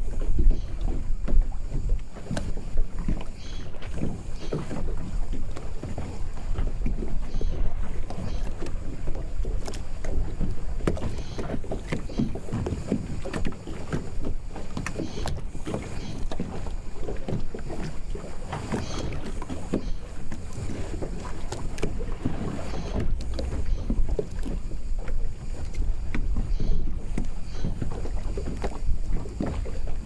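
Harbour water lapping and slapping against a moored small boat and the concrete quay, with frequent small knocks from the boat, over a low steady rumble of wind.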